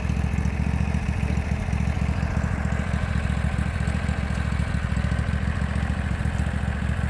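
Simplicity riding lawn tractor's engine running steadily at idle, a fast, even low chug with no revving.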